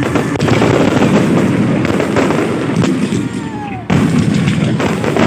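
Fireworks going off in quick succession: a dense, loud crackle of bangs and pops, with a whistling tone gliding down about three and a half seconds in. The crackling dips briefly and comes back loud just before four seconds in.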